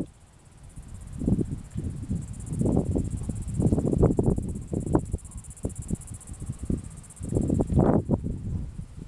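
A steady high-pitched buzz of insects, such as crickets, runs under irregular rustling and knocks from movement and handling close to the microphone, which come loudest around four seconds in and again near the end.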